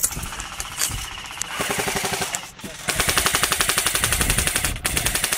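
Airsoft guns firing on full auto, a rapid even rattle of shots. A lighter burst comes first, then from about three seconds in a louder, steady burst with a brief break near the end.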